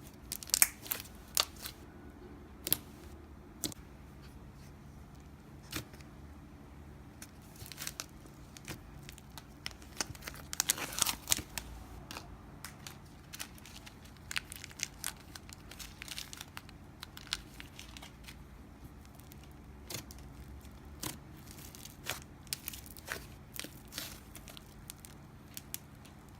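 Slime being handled and played with: scattered sharp clicks and crackling pops, with a denser run of crackles about eleven seconds in.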